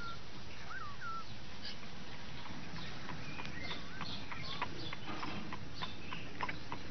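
A few short high chirps, then a run of light irregular clicks and taps as a cat works at the wooden puzzle box and its latch, over a steady background hiss.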